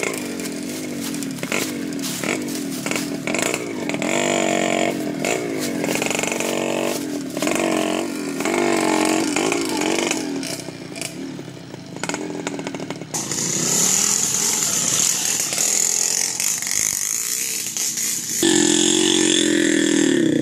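Small motorbike engine running on a rough dirt track, its pitch rising and falling over and over as the throttle is worked. Partway through it fades under a steady hiss, then comes back louder near the end.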